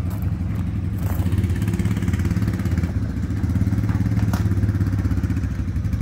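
An engine idling with an even, low pulse, a little louder in the second half, with a couple of faint clicks over it.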